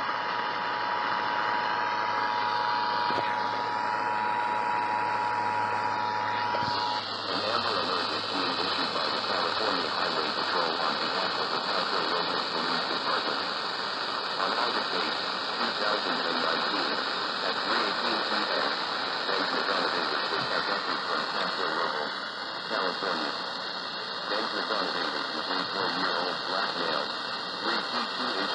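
Emergency Alert System two-tone attention signal, a steady dual tone, sounding over heavy static hiss and cutting off about seven seconds in. After that only loud, steady radio static and noise remain, with no clear alert message.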